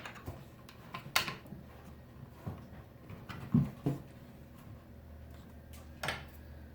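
Scattered clicks and light knocks of Nokta Simplex+ metal detector parts being handled and fitted together on a table. There is a sharp click about a second in, a few dull knocks in the middle, and another click near the end.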